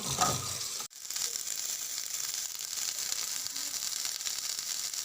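Steady sizzling hiss of oregano leaves heating in a pan, broken off sharply about a second in before it carries on.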